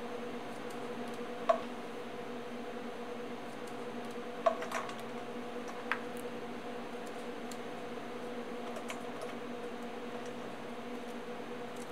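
Raw onion slices being pushed apart into rings and dropped into a stainless steel bowl: faint crisp crackles and squeaks, with a few sharp taps against the metal bowl, one about a second and a half in and two more in the middle. A steady low hum lies under it all.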